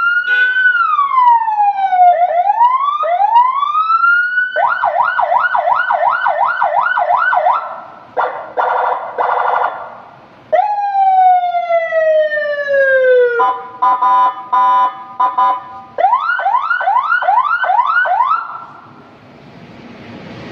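Electronic police-style siren from a patwal strobe-and-siren kit, cycling through its tones. It starts with a slow rising and falling wail, then a fast yelp of about three sweeps a second, a warbling stretch, a long falling sweep, a stuttering steady-tone pattern, and the fast yelp again. It cuts off shortly before the end.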